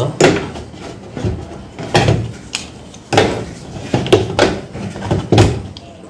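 Plastic control knobs on a washing machine's panel being pried off with a flat screwdriver: a series of sharp, irregularly spaced plastic clicks and knocks as the blade levers under the knobs and they pop loose.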